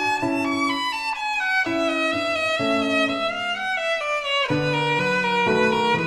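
Background music: a melody of held notes over changing chords.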